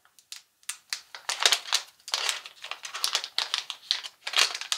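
Clear plastic packaging crinkling and crackling in irregular bursts as it is handled and opened.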